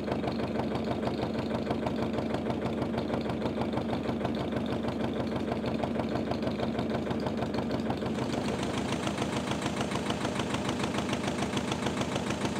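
Air-cooled Lister diesel engine of a narrowboat running steadily, with an even, regular beat.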